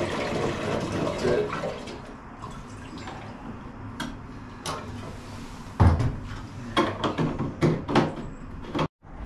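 Diesel pouring from a jerry can into a plastic fuel tank, trailing off after about two seconds. Then a series of knocks and clunks as the can is handled and set down, the loudest a heavy thump about six seconds in.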